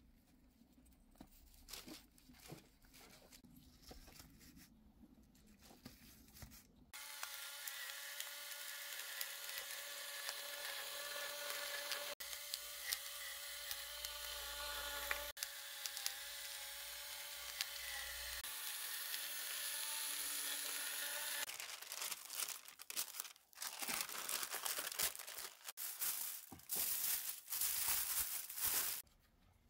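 Aluminium foil being torn and crumpled by hand, a dense run of sharp crinkling over the last several seconds. Before that, for about fifteen seconds in the middle, a steady drone with several held tones. At the start there are only faint clicks.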